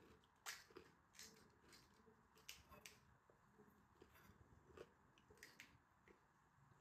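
Faint, scattered clicks and light taps of a spoon against a stainless-steel bowl while a crisp puri shell is cracked open and filled with spiced potato.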